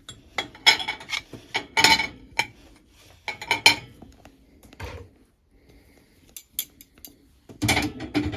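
Jar lids, a funnel and utensils clattering and knocking as they are loaded into a dishwasher, in a string of separate clinks, with the loudest clatter near the end.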